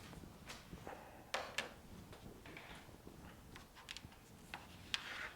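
Faint, scattered clicks and light taps of small objects being handled, a few sharp ticks spread over several seconds against a quiet background.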